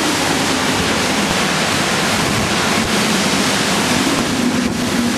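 Hurricane wind driving torrential rain: a loud, steady, dense rush of noise.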